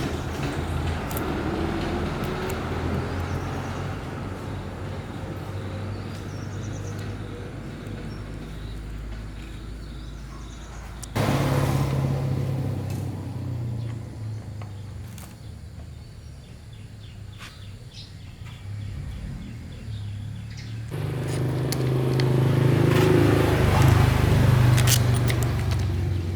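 Small petrol engine running steadily with a low hum, jumping abruptly louder about eleven seconds in and again near the end.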